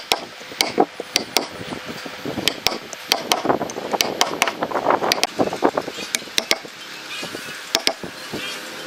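A wood chisel chopping and levering chips out of a mortise: a quick, irregular run of sharp knocks with scraping and splitting in between.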